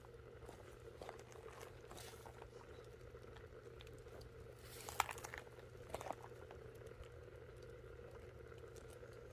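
Firewood fire crackling under a cast-iron rice cauldron that is boiling, with a faint steady bubbling. Scattered sharp pops come throughout, the loudest about five and six seconds in.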